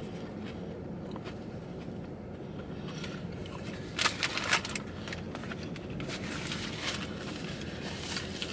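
Someone eating a crispy fried chicken sandwich: quiet crackles and scrapes of chewing and handling, with a short run of sharp crunchy clicks about four seconds in, over a low steady hum.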